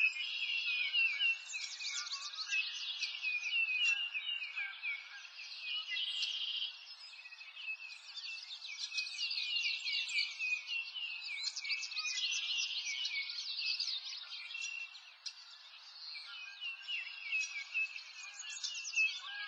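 Chorus of many small birds chirping, with quick high notes overlapping densely and nothing low-pitched beneath.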